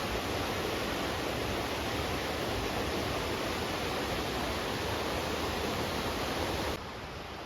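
A waterfall's water rushing, a dense, steady hiss. Near the end it drops abruptly to a quieter hiss.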